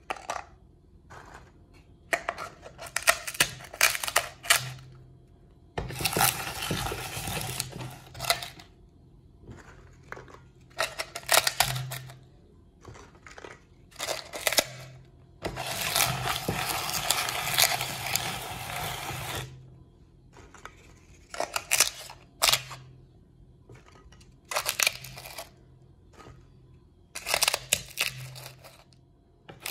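Hand-cranked cast-iron meat grinder crunching and crackling as its auger crushes mini ice cream cones fed into the metal hopper. The sound comes in irregular bursts of a second or two, with sharp clicks and knocks, and two longer stretches of grinding partway through.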